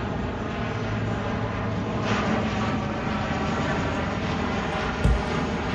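Four-engine Lockheed C-130 Hercules turboprop flying low overhead, a steady propeller drone, with a brief thump about five seconds in.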